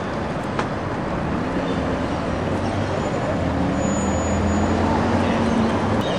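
Street traffic noise, with a motor vehicle's engine humming as it passes from about a second and a half in until just before the end.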